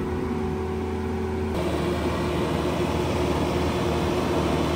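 Bobcat T86 compact track loader's diesel engine running steadily under load while its hydraulic rotor grinding head works the ground. The sound changes abruptly about a second and a half in and turns rougher and a little louder.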